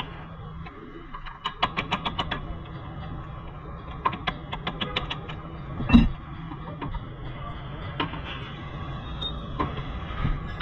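Quick runs of small metallic clicks from hand tools working on the front suspension, with one heavy knock about six seconds in, over a steady low hum.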